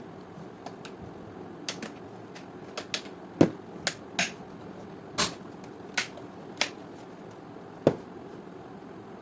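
A series of sharp clicks and knocks, about ten at uneven spacing, over a steady low hiss.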